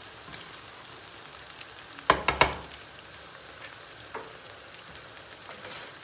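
Chicken pieces, onions and peppers sizzling steadily in a frying pan, the onions starting to catch at the edges. About two seconds in, a wooden spatula knocks and scrapes against the pan, and a few lighter clicks follow near the end.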